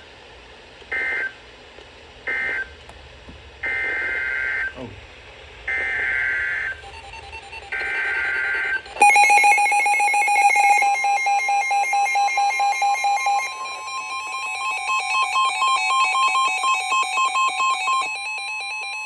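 Emergency Alert System data bursts from a weather radio: three short bursts of buzzy digital tones that end the previous message, then three longer bursts that carry the header of the next warning. About nine seconds in, a loud two-tone attention signal starts and pulses rapidly.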